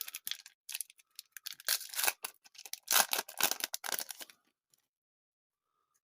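A trading-card pack's wrapper being torn open and crinkled: a run of rustling, tearing bursts that stops about four seconds in.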